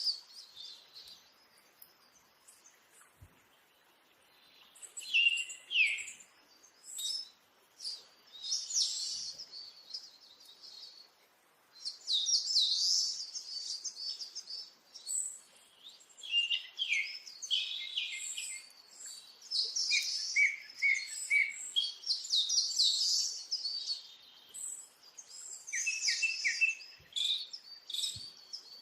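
A flock of small birds chirping and twittering over one another in short, high calls. The calls are sparse at first and become a dense, near-continuous chorus from about five seconds in.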